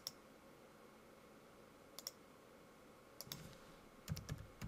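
Computer mouse clicks, with a quick double click about two seconds in, then near the end a short run of keyboard typing as a word is keyed into a confirmation box.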